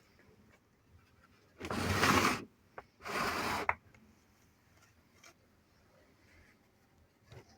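Two short rubbing noises about a second apart, with a faint click between them.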